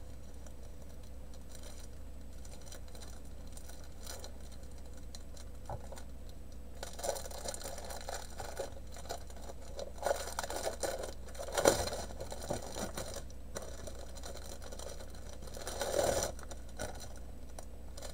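Thin plastic packaging rustling and crinkling in irregular bursts as a bag of diamond painting drill packets is handled, with a sharp crackle about halfway through and another near the end. The first several seconds hold only a low room hum.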